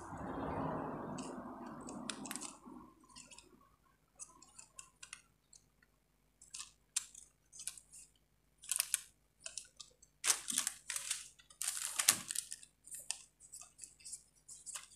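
A small screw being fitted through a wooden chassis rail into an RC car's plastic frame and driven with a screwdriver: irregular clicks, scrapes and creaks of metal, wood and plastic, thickest and loudest around the middle. A soft rushing noise fades out over the first two or three seconds.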